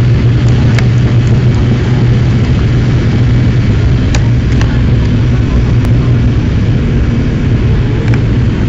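Airliner's engines at takeoff power, heard inside the passenger cabin during the takeoff roll: a loud, steady low drone with the rumble of the wheels on the runway, and a few faint ticks.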